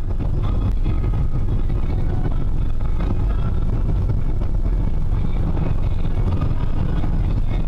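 Steady low rumble of a car on the move, engine and road noise picked up by a dashcam inside the car.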